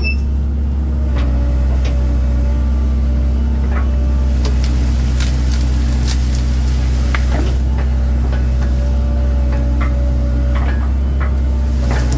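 1997 Link-Belt 2700 excavator's diesel engine running steadily, with scattered short clanks and snaps over it.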